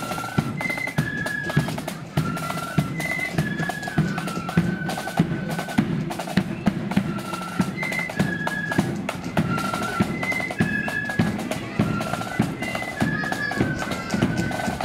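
Marching flute band playing a tune: flutes carry a melody of held notes over fast snare drum rolls and bass drum beats.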